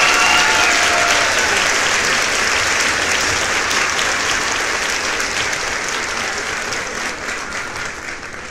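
Crowd applauding, dense clapping that slowly fades toward the end.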